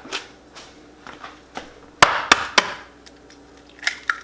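Eggs being cracked against the rim of a bowl: a few light taps, then three sharp knocks in quick succession about two seconds in, and two softer knocks near the end.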